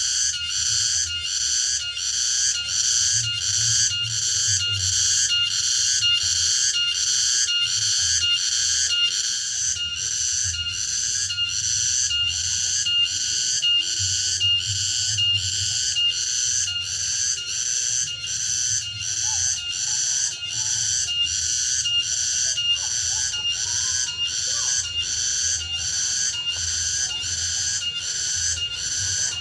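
Cicadas singing loudly and continuously: a high, shrill buzz that pulses evenly a little under twice a second, over a steady whistling tone.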